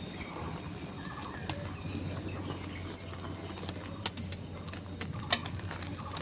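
Reformed gym chalk being crushed and crumbled, with soft crunching and two sharp cracks, the louder one just past five seconds in.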